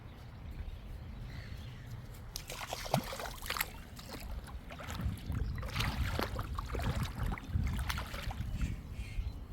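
Lake water splashing and sloshing in irregular bursts, starting about two and a half seconds in, over a steady low rumble.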